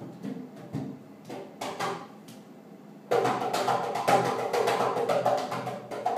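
Drum-like thumping against a hollow closet door: a few scattered knocks, then about three seconds in a fast run of thumps that lasts about three and a half seconds.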